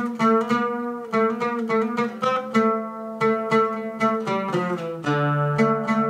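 An oud being played solo, a melody of plucked single notes at a few notes a second.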